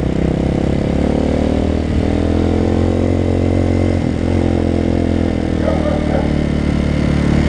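Motorcycle engine running steadily, its pitch rising slightly a couple of seconds in and dipping briefly about four seconds in.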